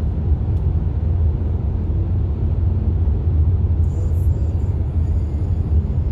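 Steady low rumble of road noise inside a moving car's cabin, driving through a road tunnel behind traffic.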